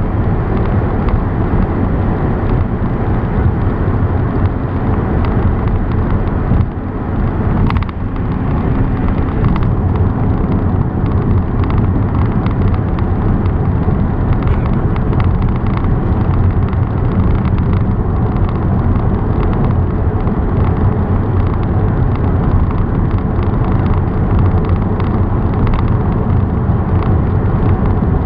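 Steady road and engine noise of a car being driven, a dense low rumble, with a brief dip in loudness about seven seconds in.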